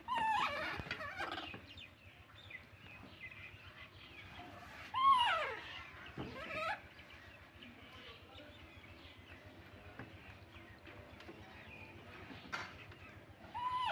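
Baby macaques giving high-pitched calls that glide up and down: one at the start, a longer one rising then falling about five seconds in, a short one just after, and one more near the end.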